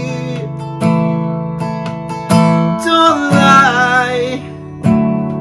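Acoustic guitar strummed in chords, a new chord every second or so, with a singer's voice holding a wavering note partway through.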